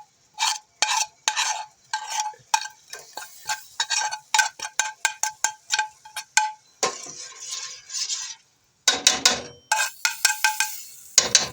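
A metal spoon clinking repeatedly against a metal pot while stirring, each strike leaving a short ringing tone; the strikes come faster through the middle. About seven seconds in there is a brief scraping rustle, and more clinks follow near the end.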